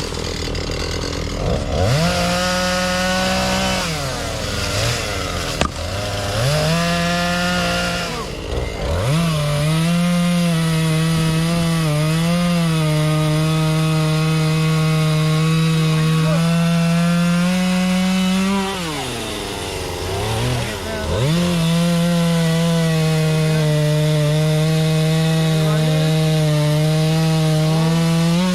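Chainsaw cutting firewood: the engine is throttled up to a high, steady whine four times, briefly twice and then in two long cuts of about ten and eight seconds, and drops back to idle between cuts.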